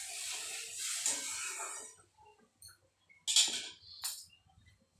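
A spatula stirring thin curry gravy in an aluminium kadai, a swishing scrape that stops about two seconds in, followed by a couple of sharp clinks against the pan about three and four seconds in.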